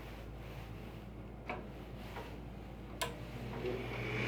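Two sharp clicks about a second and a half apart at a Tempstar gas furnace's control board as the thermostat's R and W terminals are jumped, over a faint steady hum. Near the end a furnace motor starts up and rises toward a steady run.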